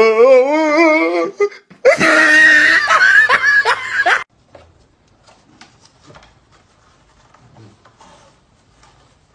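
A husky howls with a wavering, rising pitch for about a second and a half, then a man laughs loudly for about two seconds. After that only faint scattered sounds remain.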